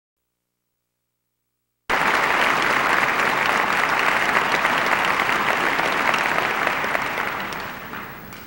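Silence, then concert-hall audience applause cutting in abruptly about two seconds in, holding steady and dying away near the end.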